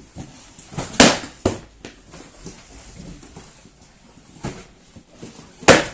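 A taped cardboard carton packed with bamboo fiber plates and bowls dropped to the floor in a drop test, landing with a loud thud twice, about five seconds apart, each followed by a smaller knock as it bounces or settles.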